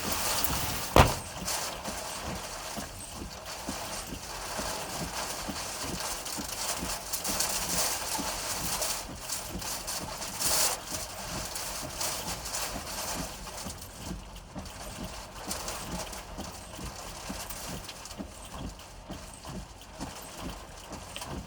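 Footsteps, about two to three a second, over a steady hiss of rain and wind. There is one sharp knock about a second in.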